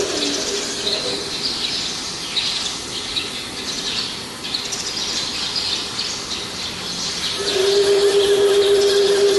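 Birds chirping throughout. A steady machine hum stops right at the start and comes back about seven and a half seconds in.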